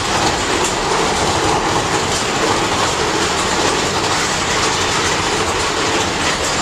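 Big Thunder Mountain Railroad mine-train roller coaster cars clattering along the track, a steady loud rattle of wheels and cars heard from on board.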